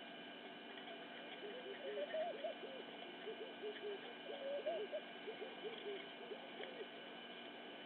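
Birds calling: a string of short notes, each rising and falling in pitch, clustered between about one and a half and seven seconds in, over a faint steady high hum.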